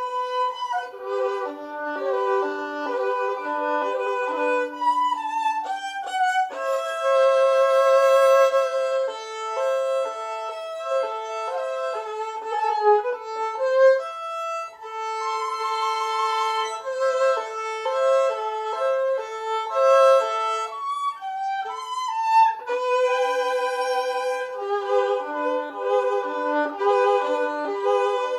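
Solo violin playing a melody. Runs of quicker notes alternate with long notes held with vibrato, about three times.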